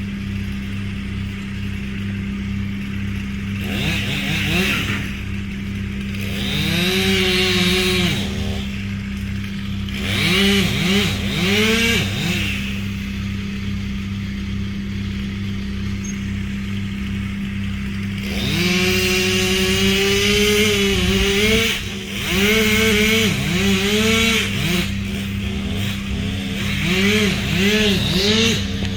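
Chainsaw revved again and again in short bursts, its pitch climbing and dropping with each squeeze of the throttle, over a steady low engine drone.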